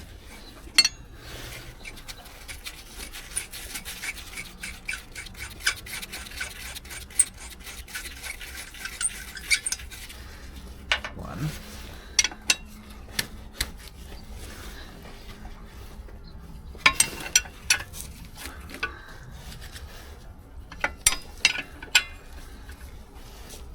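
Hand tools on metal truck parts: irregular metallic clinks, clicks and scraping, densest in the first ten seconds, with sharp clicks in clusters later.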